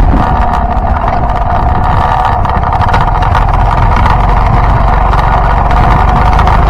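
Yamaha Byson motorcycle's single-cylinder engine running steadily, with an even engine tone and low rumble.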